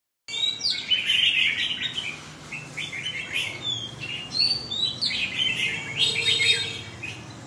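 Caged red-whiskered bulbuls singing in short bursts of quick chirps and whistles.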